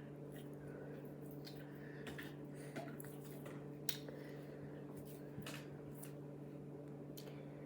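Faint, scattered squishes and small clicking crackles of a slime with foam cubes and beads in it being worked by hand, over a steady low hum.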